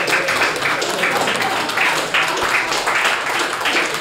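Audience applauding: a dense, irregular patter of many hands clapping.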